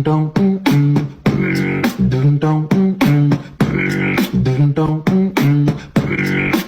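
Background music with a steady beat and a rhythmic, beatbox-like vocal line.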